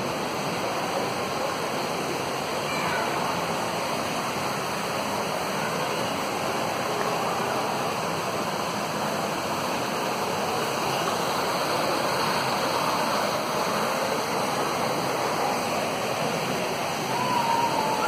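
Steady rush of water falling and splashing down an artificial rockwork waterfall.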